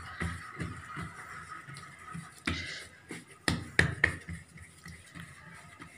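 Hands pressing and patting a large sheet of pizza dough flat on a tiled surface: soft, irregular pats and taps, with a few sharper ones in the second half.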